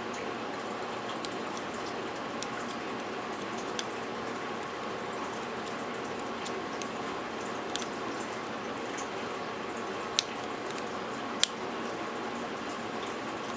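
Small, scattered metallic clicks of a lock pick and tension wrench working the spool pins of a Master Lock Magnum padlock, with two louder clicks about a second apart late on, over a steady hiss.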